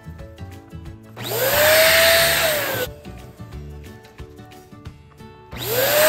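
Electric balloon pump running twice in short bursts to inflate a latex balloon: a blowing rush with a motor whine that rises in pitch as it spins up and dips just before it stops, the second burst starting near the end.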